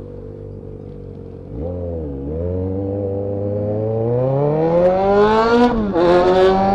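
Yamaha XJ6's inline-four engine through an open pipe with no silencer, idling briefly, then pulling away: the revs climb steadily for a few seconds, drop sharply at a gear change near the end, and climb again.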